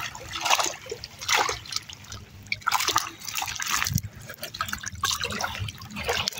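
Wire-mesh keep basket full of live rudd being hauled out of shallow lake water, splashing and then draining, with water trickling and dripping from the mesh in several short bursts.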